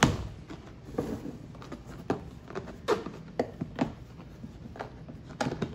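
Hard plastic tool case set down flat on a wooden table with a knock, then a series of sharp plastic clicks and taps as its snap latches are worked open.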